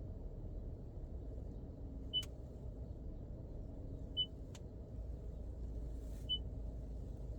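Three short high-pitched electronic beeps about two seconds apart, with a couple of sharp clicks, over a steady low hum in a Toyota Prius Prime cabin. The hum is the HVAC noise under suspicion of a failing auxiliary heat pump.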